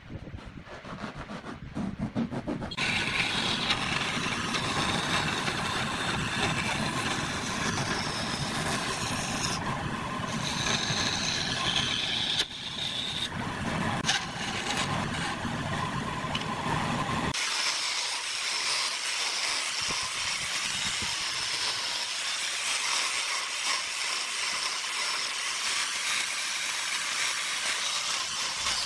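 Band saw running, cutting a thin strip of wood, with a low rumble under the cutting noise. About seventeen seconds in it gives way to an angle grinder with a sanding pad spinning against wood: a steady, higher-pitched sound without the rumble.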